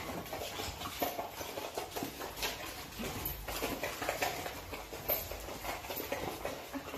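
Several dogs eating dry kibble scattered on a laminate floor: irregular crunching of the kibble mixed with claws clicking and tapping on the floor as they move about.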